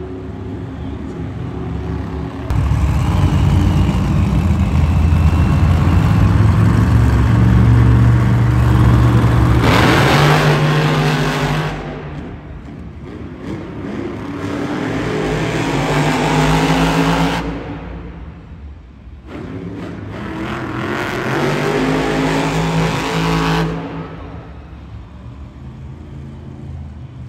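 Monster truck's supercharged V8 engine revving hard. A long run of loud revving starts suddenly about two seconds in and lasts some ten seconds, followed by two shorter bursts of revving.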